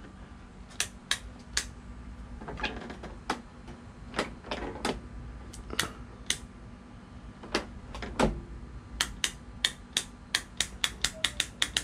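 Sharp plastic clicks from hands working the wiring connectors and the handle safety switch of an EGO electric lawn mower. The clicks come a few at a time at first, then in a quick run near the end.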